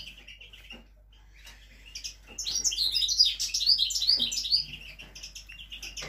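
Several small caged finches chirping and twittering in quick, overlapping high calls, loudest from about two seconds in to about four and a half seconds.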